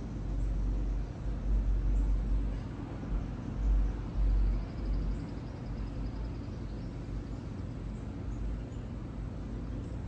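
Wind buffeting the microphone in gusts, heaviest in the first half, over a steady low outdoor hum. A faint bird trill is heard around the middle.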